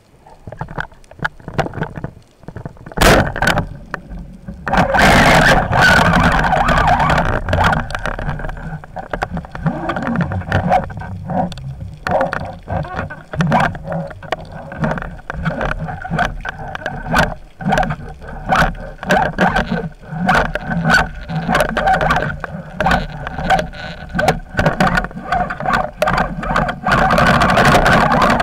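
Underwater sound of a speargun and diving gear being handled, picked up by a camera mounted on the gun: a single sharp crack about three seconds in, then continual rushing, scraping, clicking and knocking as the gun and its line are worked.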